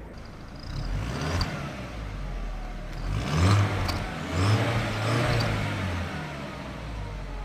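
Car engine revved in several blips, with a fake turbo whistle adding a thin high whistle that rises with each rev and falls away as the revs drop.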